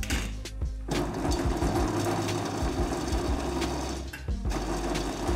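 Countertop bowl food processor chopping peeled eggplant and onion: a clatter as the glass lid goes on, then the motor and blade run steadily for about three seconds, stop briefly, and start again.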